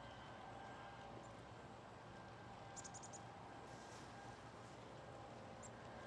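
Near silence: faint steady outdoor background, with a quick run of about five thin, high bird chips about three seconds in and a few single high peeps.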